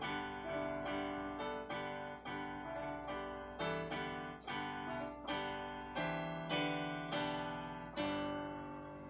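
Digital piano keyboard played through PA speakers: a run of chords struck about every half second to second. A final chord about eight seconds in is held and fades away, closing the piece.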